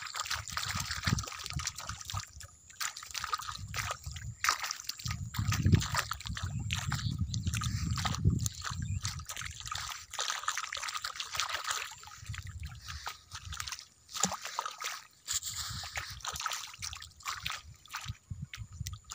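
Shallow water sloshing and splashing, with frequent short crackles and rustles and a low rumble for a few seconds in the middle.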